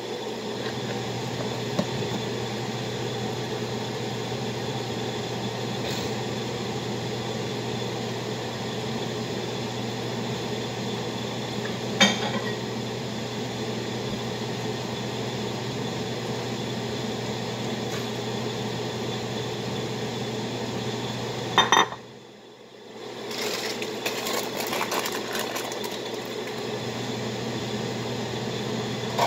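Steady hum of a running kitchen appliance, with a sharp clatter about 12 seconds in and another near 22 seconds, after which the hum drops out for about a second and comes back.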